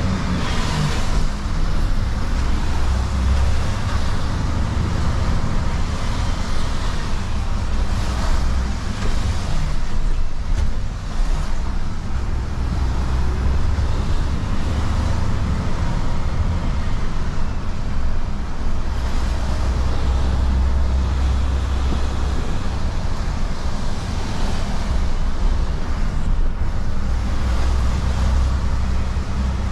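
Inside the cab of a Renault refuse truck on the move: the engine running with a steady low hum, over the hiss of tyres on a wet road.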